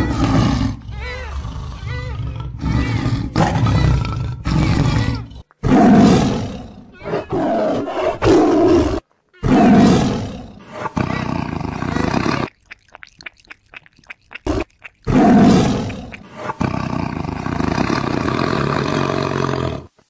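Tiger roaring and growling again and again, long rough calls with short breaks between them. About two-thirds of the way through the calls stop for a couple of seconds and a run of quick taps is heard instead.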